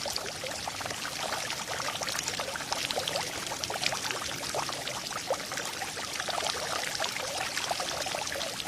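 Steady rain falling, with many separate drop strikes over a constant wash of water.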